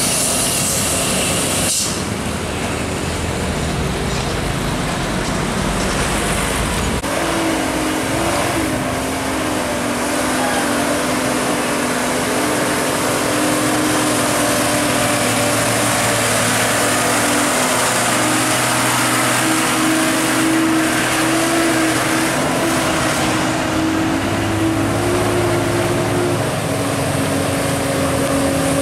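Heavily loaded tandem-axle diesel trucks climbing a steep bend, their engines labouring under the weight at steady revs. The engine note changes abruptly about 2 and 7 seconds in as one truck gives way to the next.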